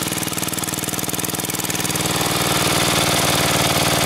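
Ariens' swapped-in 10 hp Tecumseh single-cylinder engine running steadily. About two seconds in its exhaust gets louder and harsher as the small muffler comes off the end of the chrome exhaust pipe.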